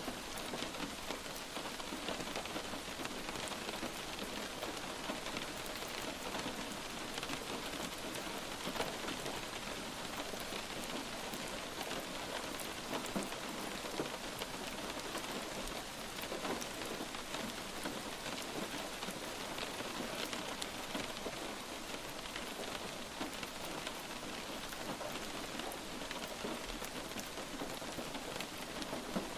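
Light rain falling steadily, with a constant hiss and many single drops pattering on a surface.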